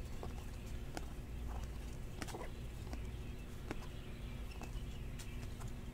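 Faint, irregular clicks and soft ticks of Panini Prizm chromium trading cards being flipped through a stack by hand, over a low steady hum.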